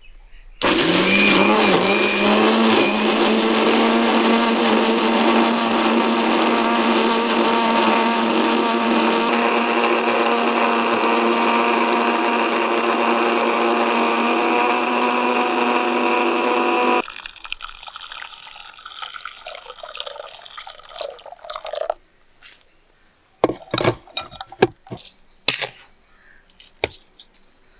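Electric blender (mixer-grinder) blending chopped fruit: the motor spins up about half a second in, runs steadily for about sixteen seconds, then cuts off suddenly. A few light knocks and clatters follow.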